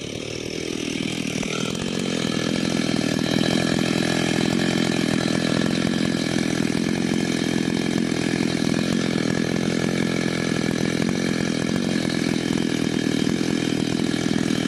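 Ported Stihl MS880 two-stroke chainsaw with a dual-port muffler running hard: it builds up over the first two seconds, then holds a loud, steady high-rev note.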